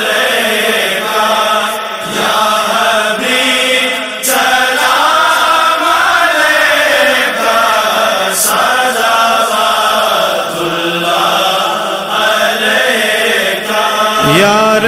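Layered male voices chanting a slow, sustained devotional melody, with notes gliding and overlapping, as the opening of a naat.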